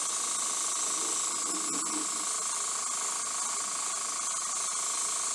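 Airbrush spraying a light first coat of paint: a steady hiss of air, with a steady high whine from the small air compressor feeding it.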